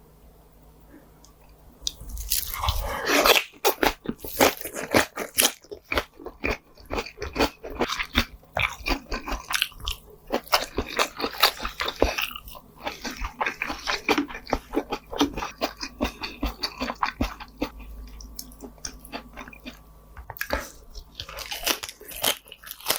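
Close-miked eating: a mouth biting and chewing pork jowl, dense quick smacks and clicks that start about two seconds in after a quiet opening.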